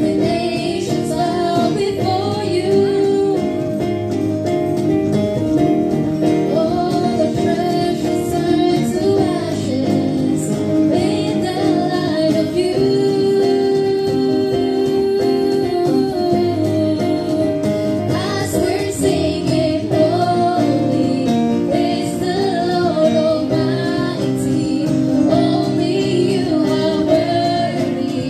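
Live worship band: a girl and a woman sing into microphones over acoustic guitar and keyboard, amplified through PA speakers.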